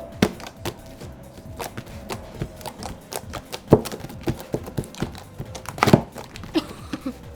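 Homemade glitter slime poked with fingers, making a string of irregular small wet clicks and pops. The loudest come about four and six seconds in.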